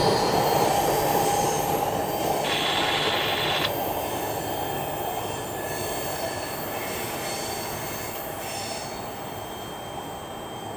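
Freight train tank cars rolling on steel wheels and rails, fading steadily as the tail of the train moves away around a curve. A brief high wheel squeal comes about two and a half seconds in, with fainter squeals later.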